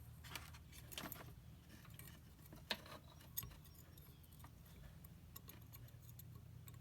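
Faint, scattered light clicks and metallic taps from an inspection endoscope's probe and hook attachment being worked down a hole to grab something, with a low steady hum underneath.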